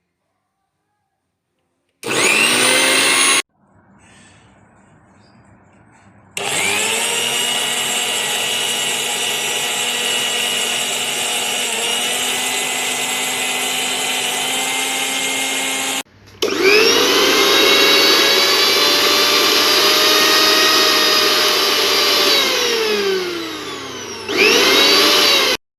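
Preethi Crown mixer grinder's motor running in several separate goes, its whine rising as it spins up each time. A short burst about two seconds in is followed by a long steady run of about ten seconds, then another run that winds down with a falling whine, and a last short burst near the end.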